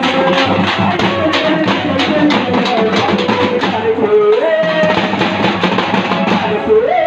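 A troupe of dappu frame drums (thappetlu) beaten with sticks in a fast, steady rhythm. A held melody line rides on top and steps up in pitch twice, about four and seven seconds in.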